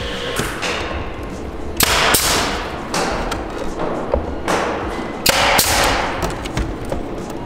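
Pneumatic nail gun firing about five times, irregularly spaced, as boards are nailed together. Each shot is a sharp crack with a brief fading tail.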